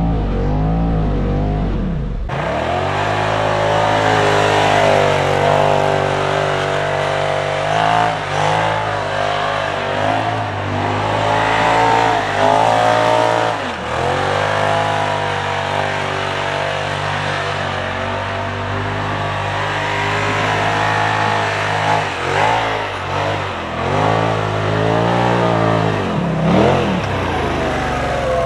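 A Polaris RZR Turbo R side-by-side's turbocharged twin-cylinder engine revs up and down repeatedly under load as the machine is driven in donuts. The sound changes abruptly about two seconds in.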